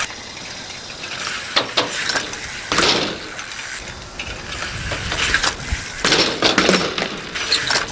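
Clattering and clicking of a BMX bike being ridden, with several scattered knocks.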